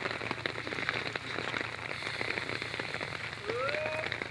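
Steady rain with many close, sharp drop ticks, like drops hitting an umbrella. A faint short rising tone comes in near the end.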